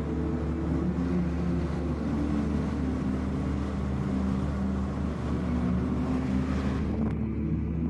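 A steady rumbling, hissing noise like a running vehicle, over low sustained drone tones; the hiss drops away about seven seconds in, leaving the low drone.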